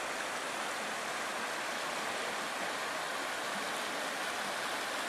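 Steady rush of a shallow river running over a rocky bed.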